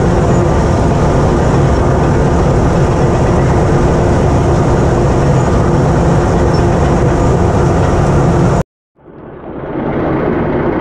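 Cat D8K crawler dozer's diesel engine running hard under load, heard from inside the open cab while the blade pushes snow, a loud steady mechanical din. Near the end it cuts off suddenly, and after a moment of silence a quieter, duller engine sound fades in.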